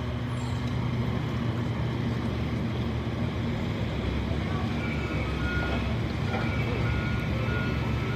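A large engine runs steadily with a low hum. From about five seconds in, a high beeping tone comes on and off over it.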